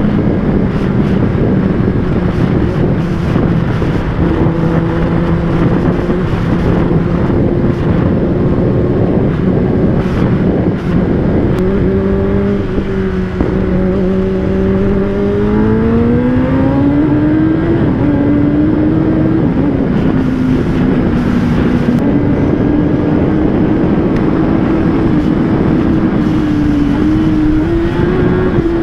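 Kawasaki ZX-10R inline-four engine running under way, over a steady rush of wind and road noise. The engine note holds steady, climbs in pitch a little past halfway, then holds higher with small ups and downs.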